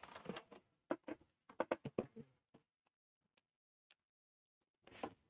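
A quick run of light clicks and taps from objects being handled, then near silence for the last couple of seconds.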